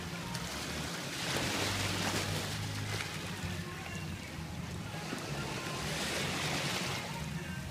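Seawater sloshing and splashing around a jet ski, with wind buffeting the microphone; the wash swells twice, over a low steady hum.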